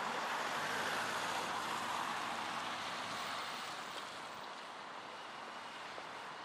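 Road traffic: the hiss of a passing car's tyres and engine on the street, fading away about halfway through.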